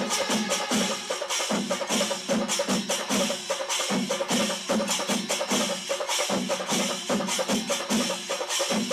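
Chenda drums beaten fast with sticks in a Kerala temple drum ensemble (chenda melam): a dense clatter of strokes over a low beat pulsing about twice a second.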